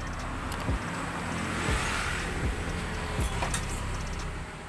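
Background electronic music with a steady thumping kick-drum beat over a low drone, and a hissy swell that peaks about two seconds in.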